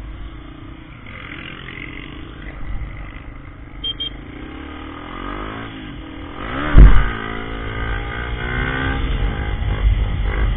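Motorcycle engine heard from the rider's helmet over wind noise. Its pitch drops as the throttle closes, a loud thump comes about seven seconds in, and then the engine revs back up, its pitch rising.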